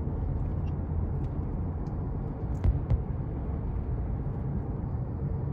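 Strong desert wind in a dust storm buffeting the microphone: a steady low rumble, with a brief knock or two about two and a half seconds in.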